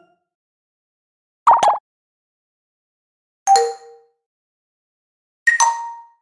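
Three different short electronic notification chimes, about two seconds apart, with dead silence between them; the later two each step down from a higher note to a lower one.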